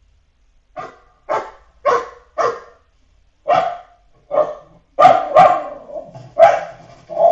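Recorded dogs barking, played back as background noise: a string of about ten short, sharp barks starting about a second in, spaced out at first and coming faster near the end.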